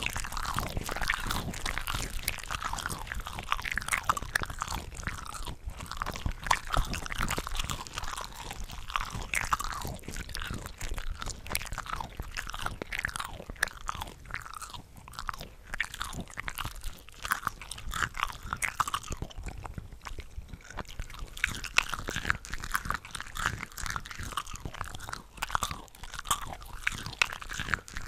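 Close-up mouth sounds of eating cooked shrimp: continuous chewing and biting with crisp, wet crackles, several eating tracks layered over each other so the bites overlap without pause.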